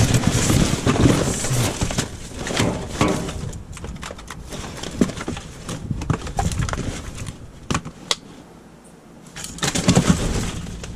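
Rummaging in a dumpster: irregular knocks, rustles and clatter of boxes and discarded items being moved about. It eases off about eight seconds in, then more clatter comes near the end.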